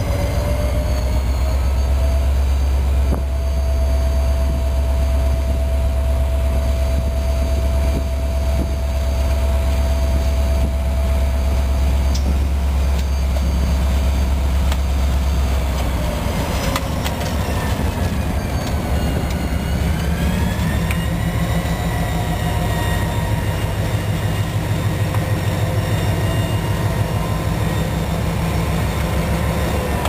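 EMD SD45 diesel-electric locomotive and its 20-cylinder engine moving slowly past at close range, with a loud, steady low drone and a whine above it. About halfway through, the drone turns into a pulsing throb as the locomotive comes alongside, and the whine glides down and back up.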